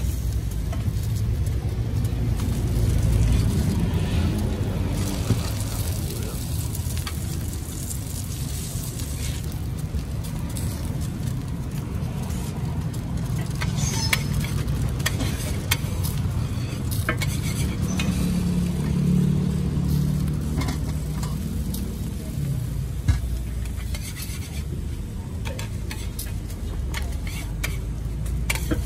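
An egg and a beef patty sizzling on a steel flat-top griddle, while a metal spatula and a slotted scraper click and scrape against the plate as the egg is folded around the patty. A steady low rumble runs underneath.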